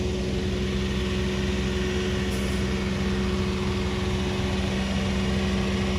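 Engines of a trailer-mounted concrete line pump and the concrete mixer truck beside it running at a constant speed, a steady drone with an even hum.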